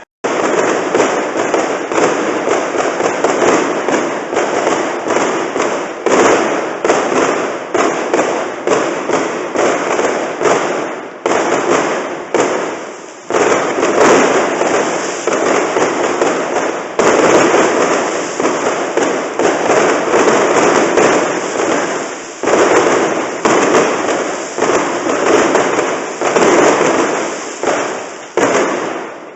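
Fireworks display going off in a rapid, continuous barrage: sharp bangs several a second, each dying away as the next one hits, with a brief lull about thirteen seconds in.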